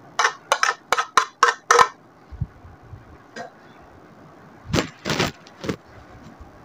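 A quick run of about eight light taps and scrapes over two seconds as a plate is knocked and scraped to tip chopped mint off it into a serving bowl, then three more scrapes about five seconds in.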